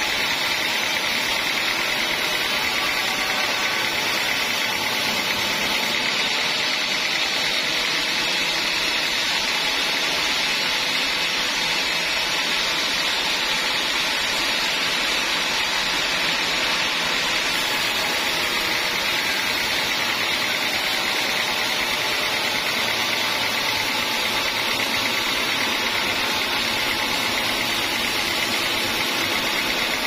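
Band sawmill blade sawing lengthwise through a hard acacia log, giving a steady, even noise throughout.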